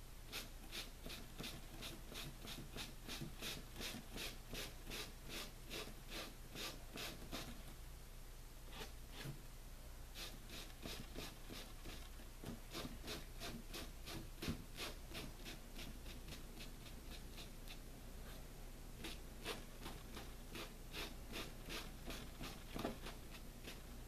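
Crumpled plastic wrap dabbed repeatedly against a painted canvas board: a quick run of light crisp taps, about four a second, pausing briefly a couple of times.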